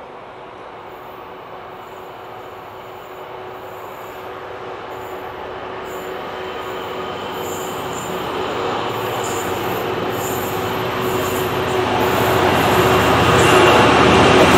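Class 66 diesel locomotive approaching along the line, its engine and wheels on the rails growing steadily louder, with a steady hum, and loudest near the end as it draws level.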